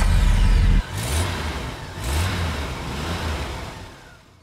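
Vehicle engine sound effect in an outro sting: a heavy low rumble that cuts off abruptly, then two revs about a second apart, fading away near the end.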